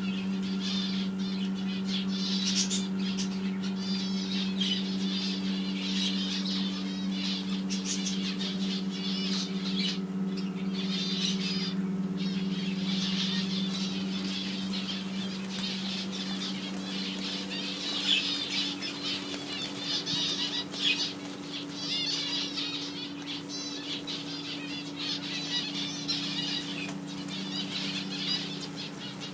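A flock of small caged birds chirping continuously, with wing flutters and a few louder flaps. A steady low hum runs underneath.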